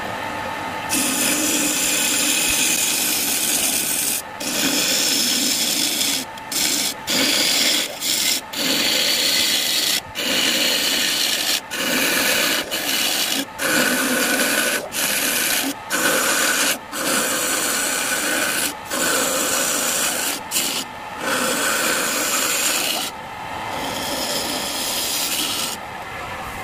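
A wood-turning gouge hollows the inside of a wooden bowl spinning on a homemade lathe. The steady scraping cut is broken by many brief gaps as the tool is lifted and set back. The cutting stops a few seconds before the end, leaving the lathe running.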